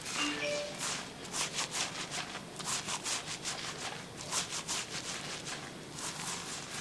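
Lathered fingers scrubbing shampoo through hair on a scalp, making a run of quick wet, foamy rubbing strokes, several a second.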